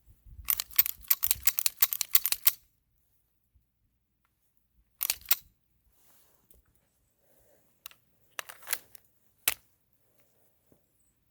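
A rapid string of sharp mechanical clicks and clacks for about two seconds, then a short cluster of clicks about five seconds in, and a few more single clicks near the end.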